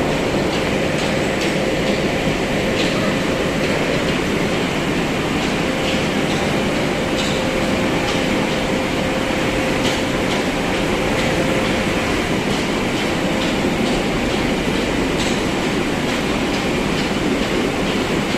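A 300-ton automatic baling press running: a loud, steady mechanical din with a thin whine that comes and goes, and scattered clicks.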